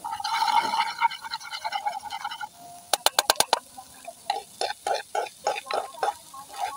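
A knife scraping and tapping against a frying pan as scrambled egg and tomato is stirred. About three seconds in comes a quick run of five sharp taps, then scrapes and knocks at about three to four a second.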